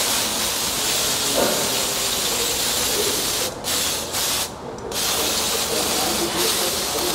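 Aerosol brake cleaner spraying in a steady hiss onto a bare wheel hub and brake backing plate. The spray stops briefly two or three times about halfway through.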